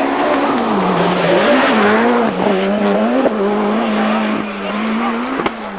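Group B rally car engine running hard on a gravel stage, its note dropping and rising several times as the driver changes gear and lifts off. A rush of tyre and gravel noise about two seconds in, and a sharp crack near the end.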